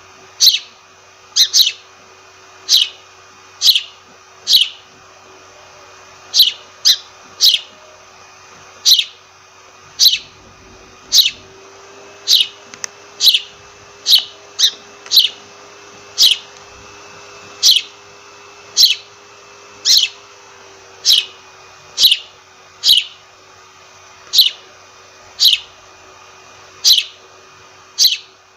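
Sparrow chirping: single short, sharp chirps about once a second, now and then two in quick succession, over a faint steady hum.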